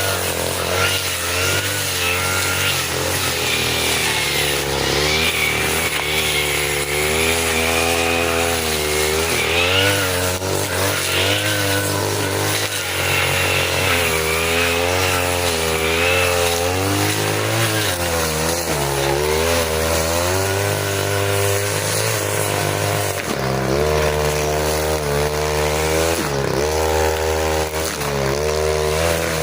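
A 40cc two-stroke brush cutter running hard, its pitch repeatedly dipping and rising as the blade bogs into thick grass and frees up again.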